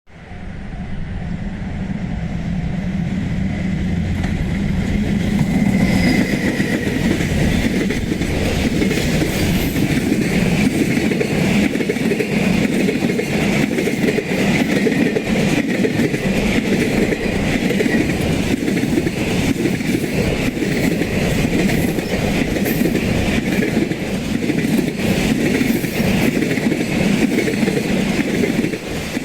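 JR Freight EF210 electric locomotive and its freight wagons passing close by. The sound swells over the first few seconds, then runs on as a steady rumble of wheels clicking over the rail joints.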